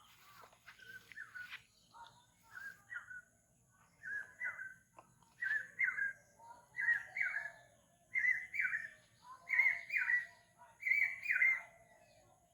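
A bird calling a repeated two-note phrase, about once a second, the calls growing steadily louder.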